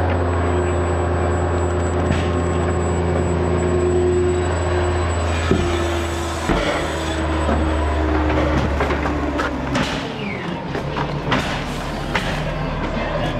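Diesel engine of a 30-ton mobile crane running with a steady low drone, its note shifting about five seconds in. The drone fades about ten seconds in, leaving scattered knocks and clicks.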